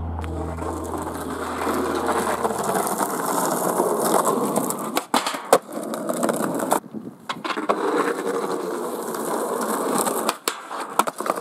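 Skateboard wheels rolling over rough concrete, broken by several sharp clacks of the board, a pair around five seconds in, more around seven seconds and near the end. The bass of a song fades out over the first three seconds.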